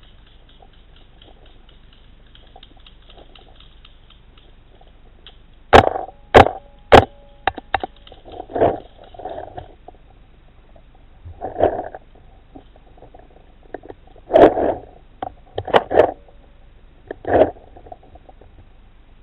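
Paintball fire: three sharp, loud cracks about half a second apart, then duller pops and thuds every second or two.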